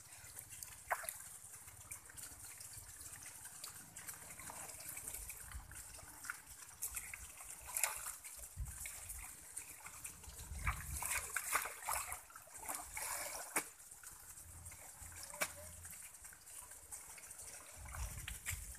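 Shallow water trickling and splashing as hands move a plastic mesh basket of catfish fry about in a few centimetres of pond water. Small splashes and knocks are scattered throughout, busiest about ten to thirteen seconds in, with one sharp knock soon after.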